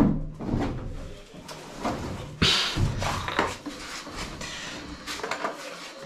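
A washing machine being turned over by hand: a series of irregular clunks and knocks from its body, the loudest a knock with a short scrape about two and a half seconds in.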